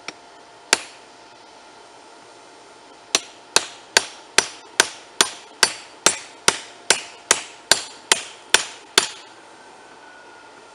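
Hand hammer striking steel, a handled cutting tool set on a red-hot railroad spike on a small anvil: one blow under a second in, then after a pause a steady run of about fifteen blows, a little over two a second, each with a short metallic ring, stopping about nine seconds in.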